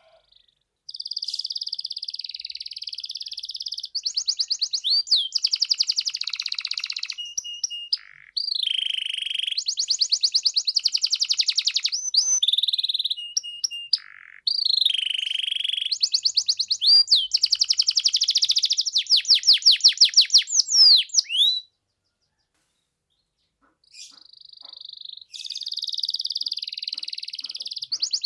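Domestic canary in full song: a long, varied run of trills and rapid repeated notes, broken by a pause of about two seconds near the end before it sings again.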